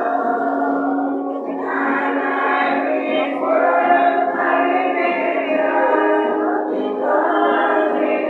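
Music with voices singing, held notes that glide from one to the next.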